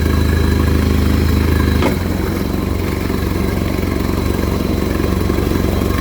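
2016 Honda 115 hp inline four-cylinder EFI four-stroke outboard running at idle. A single clunk about two seconds in, typical of the gearcase being shifted, after which the engine note changes and drops slightly in level.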